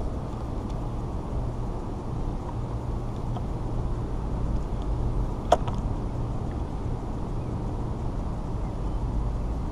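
Steady low rumble, with a single sharp click about halfway through.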